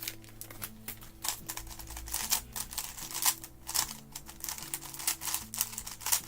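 Quick, irregular plastic clicking and clacking of a GAN 11 M magnetic speedcube being turned by hand, several clicks a second, over background music with held low notes.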